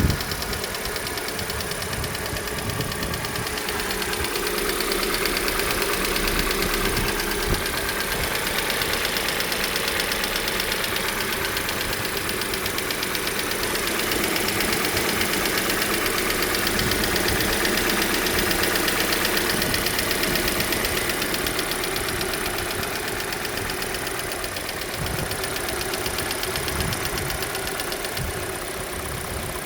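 Hyundai/Kia G4NA 2.0-litre four-cylinder engine idling from a cold start, with a fast, even ticking knock over the running. The owner takes the knock for the variable valve timing (VVT) valve.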